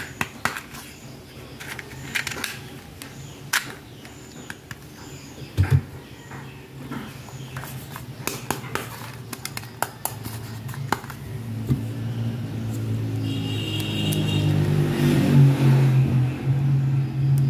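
Small plastic toys being handled, with sharp clicks and taps such as toy phone buttons being pressed. From about two-thirds of the way through, a low steady hum grows louder under the handling.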